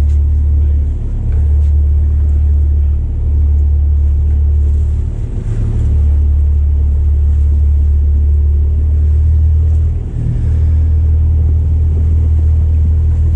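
Motorboat's engine running with a steady low rumble that dips briefly a few times.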